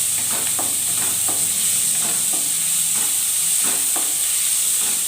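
Small chicken pieces frying in oil on a hot tawa with onion and chillies, sizzling steadily, while a spatula stirs and scrapes the pan in quick repeated strokes.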